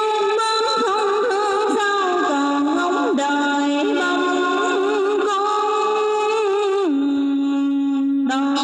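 Tân cổ music (Vietnamese modern song blended with cải lương): a single melody line of wavering, ornamented held notes, dropping to one long steady low note about seven seconds in.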